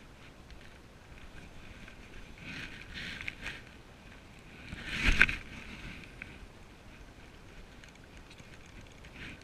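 Handling noise from a fishing rod and spinning reel: light rustling and small clicks over a low haze of wind and water. About five seconds in, an arm rubs across the chest-mounted camera, making one loud brushing thump.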